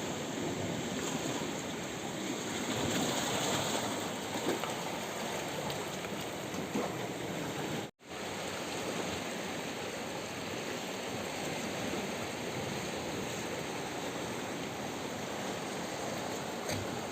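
Sea waves washing continuously over a rocky shore, a steady rush of water with no distinct breaks between waves. The sound cuts out for a split second about eight seconds in, then resumes.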